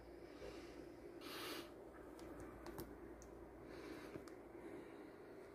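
Quiet room with two faint breaths, one about a second and a half in and a weaker one near four seconds, and a few small clicks in between.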